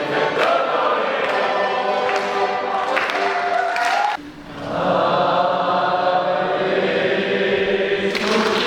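Choir singing held, sustained chords. The voices break off briefly about four seconds in, then come back in with a new phrase.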